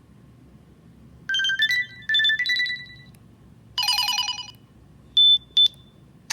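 LG ME970 mobile phone playing a series of short electronic alert tones: three brief melodic phrases with pauses between them, then two quick high beeps.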